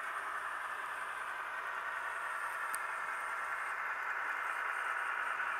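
Kato N-scale Union Pacific Big Boy model steam locomotive running on the layout with its factory-installed DCC sound decoder on, a steady hissing rush through its tiny onboard speaker that grows a little louder about four seconds in.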